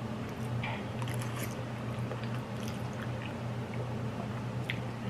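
A person chewing instant noodles close to the microphone, with small wet mouth clicks and smacks, over a steady low hum.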